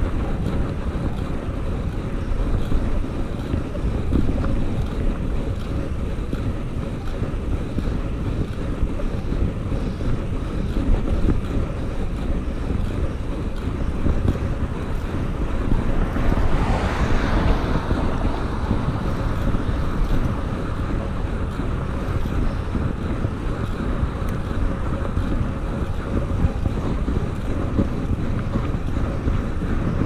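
Steady wind rushing over the microphone of a bicycle riding along a road, with a louder swell of rushing noise a little past halfway that rises and falls over about two seconds.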